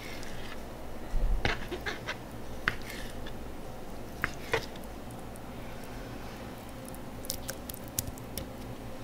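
Kitchen knife cutting raw king mackerel into small cubes on a plastic cutting board: a few scattered knocks of the blade against the board, the loudest about a second in, over a steady low hum.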